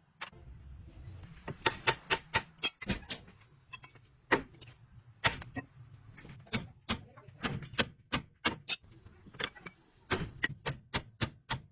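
Irregular sharp knocks and clicks, about two to three a second, from tools and metal parts being handled during work on a truck's rear axle bearing.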